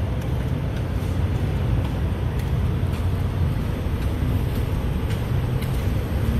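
Steady low rumble of an idling engine, with a few faint clicks about four to six seconds in.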